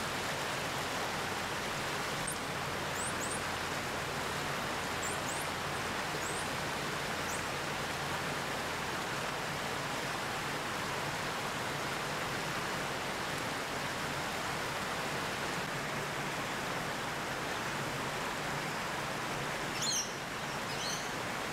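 Steady rushing background noise, with short, high chirps scattered through the first several seconds and a quick run of louder high squeaks near the end.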